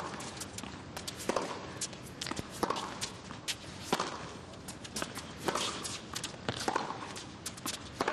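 Tennis stadium sound between points: a low crowd murmur with scattered sharp knocks and clicks from the court, at uneven intervals.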